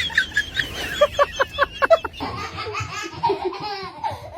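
People laughing: a quick run of short, rhythmic laughs in the first two seconds, then looser laughter mixed with voices.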